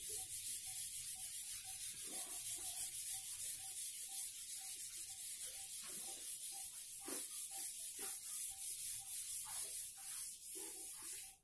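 Whiteboard duster rubbing back and forth over a whiteboard, wiping off marker writing, in quick, even strokes, about three to four a second.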